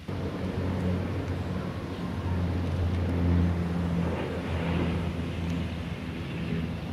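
Low, steady engine drone of an amphibious water-bomber aircraft flying over the fire, loudest about halfway through.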